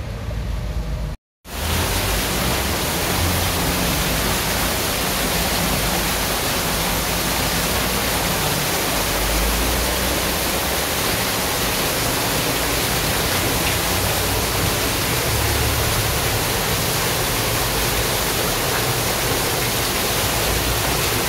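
Water gushing and spraying down among pipes and hoses and splashing onto the floor below: a loud, steady rush. It begins after a brief cut to silence about a second in.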